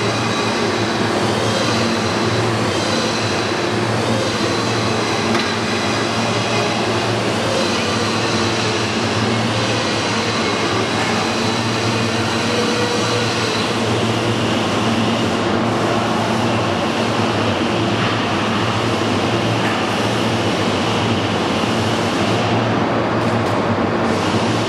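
Steady industrial hum of a large factory floor: machinery and ventilation running, a constant low hum under an even rushing noise that barely changes.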